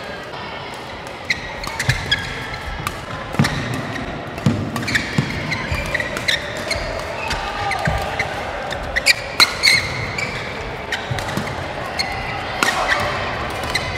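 Badminton rackets hitting a shuttlecock in a fast doubles rally: a quick string of sharp hits, densest in the middle, mixed with short squeaks of court shoes on the floor.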